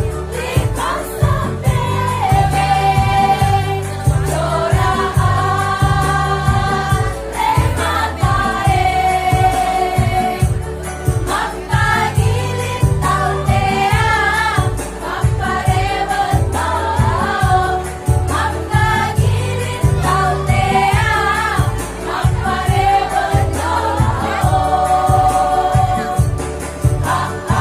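Women's choir singing held notes together, over an instrumental accompaniment with a steady beat.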